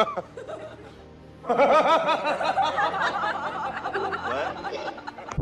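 A person snickering and laughing in quick repeated bursts over background music, the laughter starting in earnest about a second and a half in.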